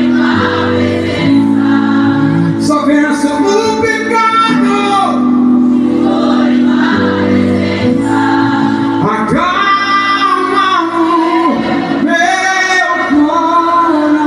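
Live gospel music amplified through a PA: a man sings a held, flowing melody over sustained accompaniment and acoustic guitar.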